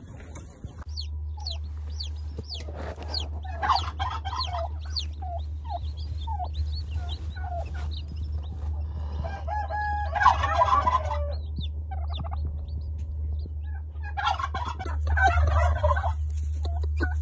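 Newly hatched chicken chicks peeping in short falling chirps, with a broody hen calling in three louder bursts, over a steady low hum.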